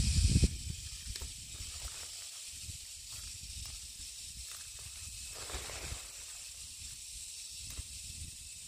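Outdoor ambience: a steady high hiss over a low rumble, louder for the first half second, with faint scattered ticks.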